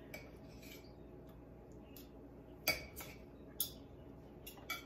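Table knife and fork clicking against a dinner plate while cutting up cooked roast beef: a few sharp, irregularly spaced clinks over a quiet background, the loudest about two and a half seconds in.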